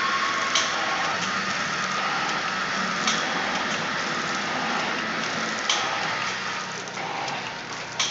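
Auger-filler pouch packing machine running steadily, with a sharp clack about every two and a half seconds as it cycles through forming, filling and sealing powder pouches.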